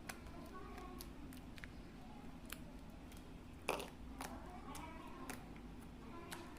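Homemade slime being handled and pressed by hand, giving faint scattered sticky clicks, with one slightly louder squelch about three and a half seconds in.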